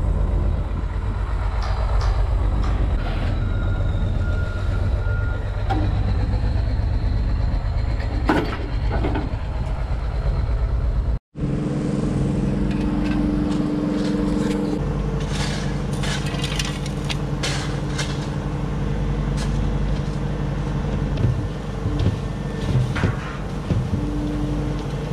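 Diesel engine of a compact excavator running steadily under load while it lifts and sets a concrete box on chains. About eleven seconds in it cuts to another stretch of heavy-machine engine noise with scattered knocks and clatters as dirt and stones fall into a trench.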